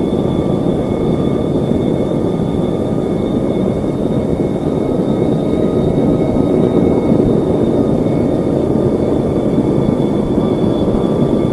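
Aircraft engine noise: a loud, steady rumble with thin, high whining tones held throughout, as heard on an old field tape recording near an airport.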